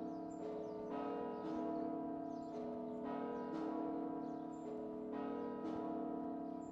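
Bells ringing in a repeating pattern: groups of three strikes at different pitches, about every two seconds, each tone ringing on under the next.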